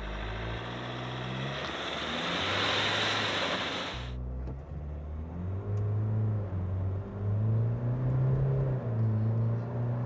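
Ford Ranger Wildtrak's 2.0-litre four-cylinder diesel accelerating hard from a standstill, heard from inside the cab. Its note climbs and drops back several times as the automatic shifts up through the gears. A steady hiss over the first four seconds cuts off suddenly.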